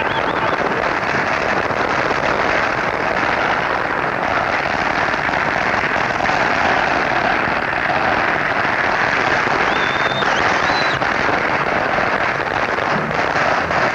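Amateur firecrackers going off in a dense, unbroken crackle, with a brief whistle about ten seconds in.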